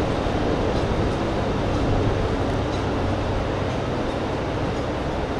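DB class 601 TEE diesel train's engines running steadily, a low, even drone.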